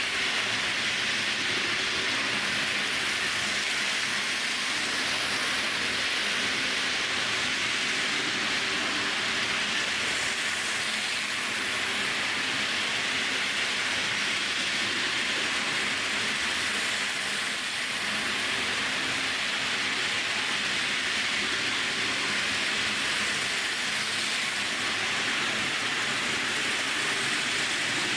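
HO-scale Tyco GG-1 model electric locomotive running steadily on its track: an even whir of the small motor and wheels on the rails, at a constant level.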